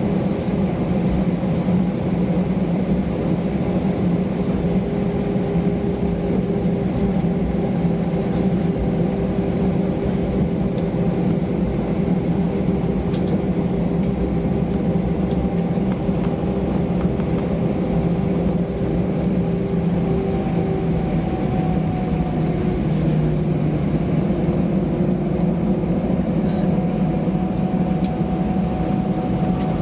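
Cabin noise of an Airbus A319-111 taxiing on its CFM56 turbofans: a steady engine drone with a low hum and a higher whine. About two-thirds of the way in, one tone fades and the hum drops slightly in pitch.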